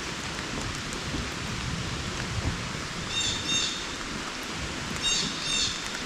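Steady rain falling, with a bird calling a quick pair of high notes about three seconds in and again about five seconds in.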